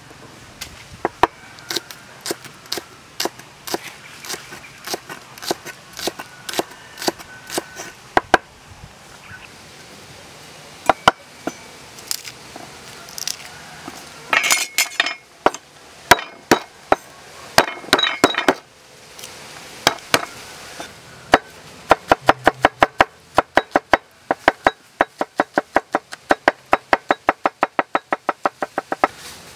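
Cleaver chopping on a wooden cutting board: spaced single knocks as it slices spring onion, a papery crackling midway as a garlic bulb is broken apart and peeled, then a fast steady run of chops, about four a second, mincing the garlic.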